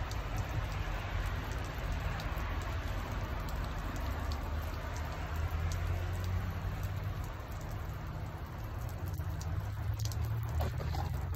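Meltwater dripping and pattering from large melting icicles along a roof edge, scattered small drip ticks over a steady wet patter, with a steady low rumble underneath.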